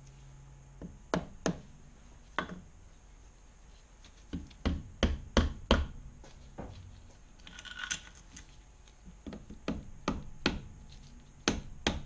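Soft-faced mallet tapping the aluminium cylinder barrel of a Kawasaki KLR 650 single to loosen it from the crankcase, a string of sharp knocks coming in bursts, with a short scrape of metal parts in between.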